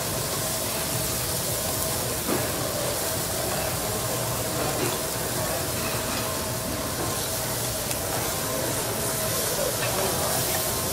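Lobster, garlic and steak sizzling on a hot teppanyaki griddle, a steady hiss, with a small knock of a spatula about two seconds in.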